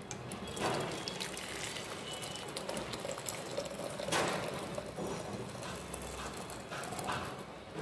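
Ginger tea bubbling as it boils in a pan: a steady seething with many small pops, and a couple of louder splashy surges about a second in and again near the middle.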